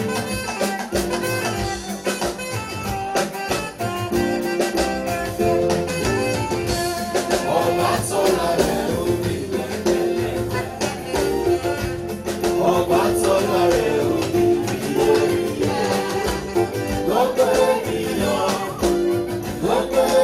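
Live band playing upbeat dance music with a steady beat, and a voice singing over it from about a third of the way in.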